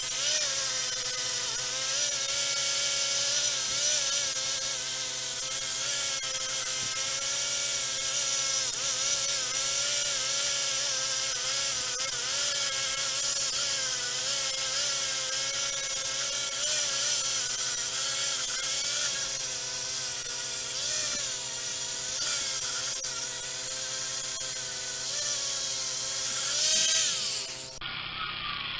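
Hand-held power tool running and scraping as it cleans carbon crud off an AMC 232 six-cylinder cylinder head. Its whine wavers in pitch as it loads against the metal, and it cuts off suddenly near the end.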